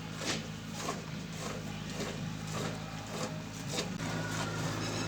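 Milk squirting into a pail as a cow is milked by hand: short hissy spurts, unevenly spaced about every half second, over a steady low hum.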